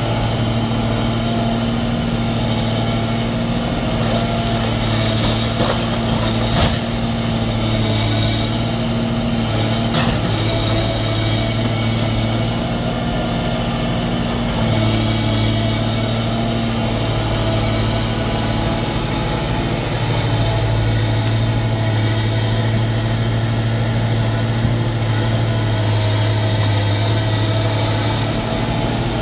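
Diesel engine of an Atlas 1704 HD tracked excavator running steadily under varying load as its grab arm works, with a few sharp knocks of masonry and rubble about six and ten seconds in.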